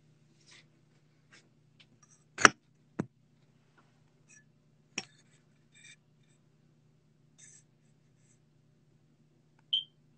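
Scattered light clicks and taps over a steady low hum, with two louder knocks about two and a half and three seconds in, another around five seconds, and a short high chirp near the end.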